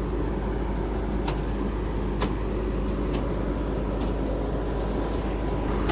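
Combine harvester's diesel engine running steadily, with a few faint clicks over it.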